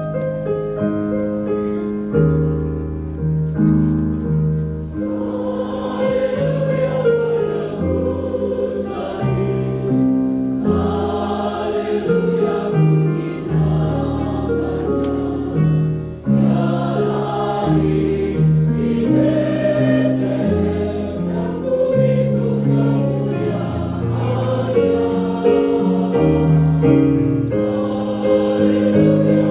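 Mixed choir of women's and men's voices singing a Christmas hymn in harmony, held chords moving steadily, over keyboard accompaniment with sustained low bass notes.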